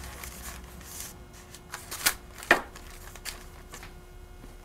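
Soft papery rustling with a few short, crisp crackles, the loudest about two seconds in, as a pastry brush dabs melted butter onto thin phyllo dough in a parchment-lined baking pan and a hand smooths the sheet down.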